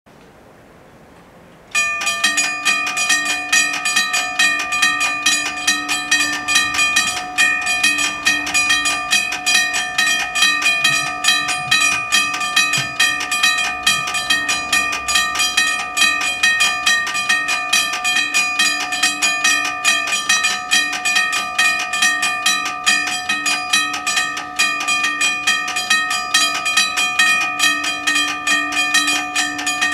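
Level crossing warning bells start ringing about two seconds in and keep ringing with rapid, even strokes, warning that a train is approaching.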